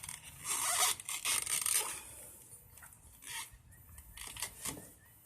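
Metal parts scraping and rubbing as a scooter's CVT drive belt and variator are worked back into place by hand, in a loud rasping stretch over the first two seconds, then a few shorter scrapes and clicks.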